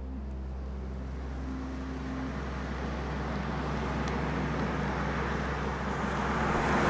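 A car approaching along a road, its tyre and engine noise growing steadily louder, over a low steady drone.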